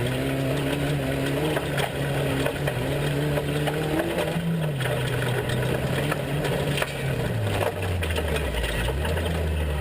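Off-road race truck engine running, its pitch shifting up and down with the throttle and dropping lower about three quarters of the way through, with many sharp clicks and rattles over it.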